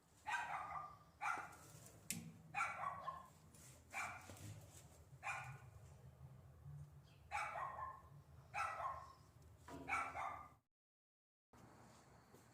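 A dog barking repeatedly, about nine barks roughly a second apart. The sound drops out completely for about a second near the end.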